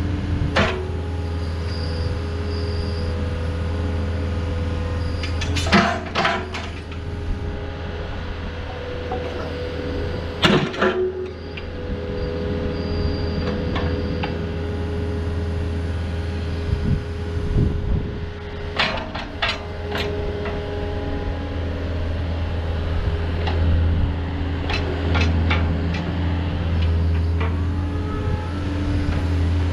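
Yanmar VIO50-U mini excavator's diesel engine running steadily while its boom and bucket are worked, with several sharp metallic clanks along the way.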